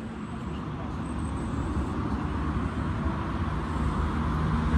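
Low rumble of road traffic, with a steady engine hum growing louder near the end.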